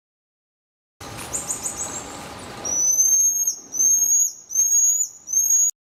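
Marmoset calling: a few quick high chirps, then four high whistles in a row, each about half a second long, rising slightly in pitch and dropping sharply at its end.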